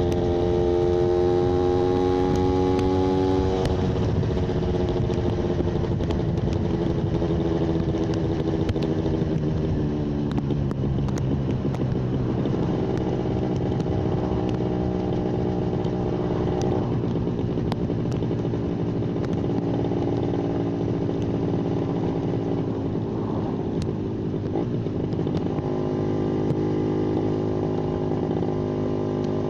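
Yamaha 125ZR single-cylinder two-stroke engine running steadily, its pitch higher at first, dropping about four seconds in and sliding lower around ten seconds, then rising again near the end.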